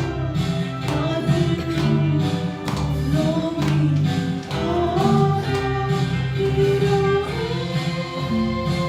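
Gospel worship song: voices singing a melody over instrumental accompaniment with a steady beat.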